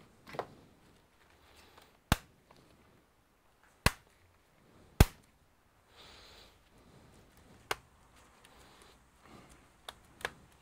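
Sharp clicks and taps from a laptop being worked on by hand: about six separate hits, the loudest about two, four and five seconds in, with a quick pair near the end.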